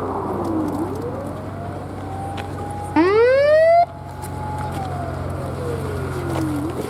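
Fire engine siren wailing, its pitch slowly falling and rising twice, over the steady low hum of the convoy's engines. About three seconds in, a louder siren blast sweeps sharply upward for under a second and cuts off abruptly.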